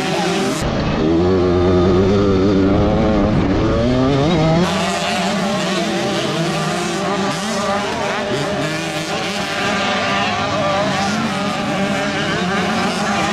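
Several motocross dirt bike engines racing at once, their pitch rising and falling with the throttle. They are loudest in the first few seconds.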